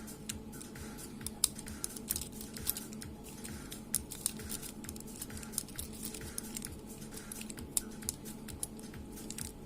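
Light, irregular clicks and ticks of a Master Lock Excell padlock's combination dials being turned and wiggled with a screwdriver, tension held on the open switch, as each dial is set in turn to decode the combination.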